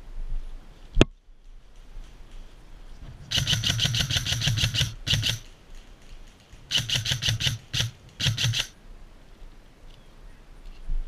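Airsoft electric gun firing in full-auto bursts: a long rapid rattle of about a second and a half, a short one, then two more bursts. There is a single sharp click about a second in.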